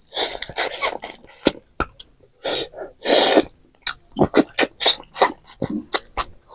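Close-up eating sounds of hand-eating rice and chicken: wet lip smacks and clicks from chewing, broken by several louder sucking slurps, the biggest about half a second in and near the middle, as food is pushed into the mouth and fingers are licked.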